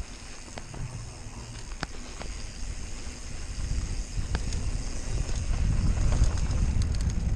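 Giant Stance mountain bike rolling down a dirt trail, with wind rumbling on the microphone. The rumble grows louder about three seconds in as speed picks up, and tyres on dirt plus scattered clicks and rattles from the bike run throughout.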